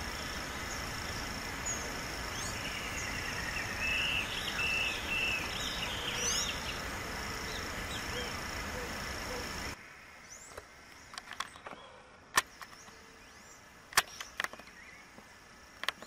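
Birds chirping and calling over a steady high-pitched insect drone and background hiss. About ten seconds in, the sound cuts to a quieter bed with a few sharp clicks and faint chirps.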